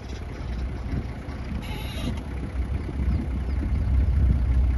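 Safari vehicle's engine running slowly in low gear, a steady low rumble, with a short hiss about two seconds in.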